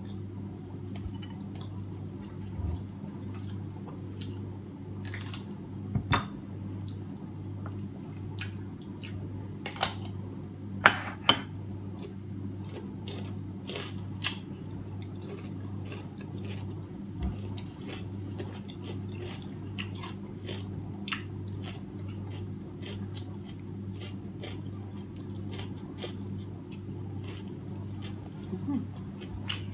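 Close-up chewing and mouth sounds of a person eating steamed fish and rice by hand, with scattered small clicks and a few sharper knocks about ten to eleven seconds in. A steady low hum runs underneath.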